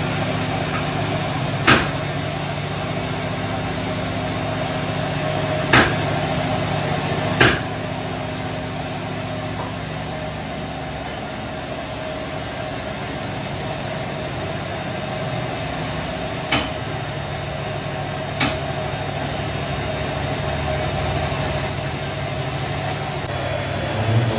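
A machine runs with a steady high-pitched squeal over a low hum; the squeal breaks off and returns a few times. A handful of sharp clicks or taps sound over it.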